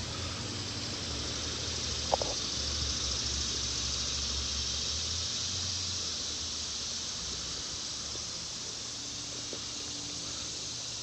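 Outdoor ambience: a steady high-pitched hiss over an uneven low rumble, with a single sharp click about two seconds in.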